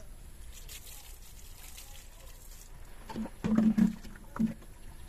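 A few short, low-pitched animal calls a little past the middle, over a quiet background.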